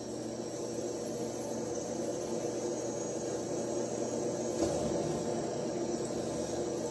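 Steady background hiss and room tone, slowly growing a little louder.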